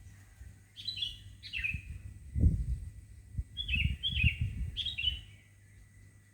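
Songbird calling outdoors: short, falling chirps in quick pairs, repeated several times. Low rumbles and thumps underneath, loudest a little over two seconds in.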